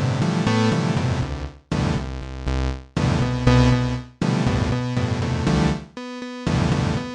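Synthesizer music played in blocks of one to two seconds, each chord starting and cutting off abruptly.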